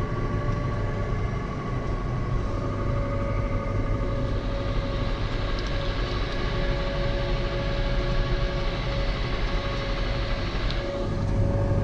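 John Deere tractor running steadily in gear with its PTO driving a Kverneland CL Geospread fertiliser spreader, a constant engine drone with a steady whine over it. A hiss joins in about four seconds in and stops shortly before the end.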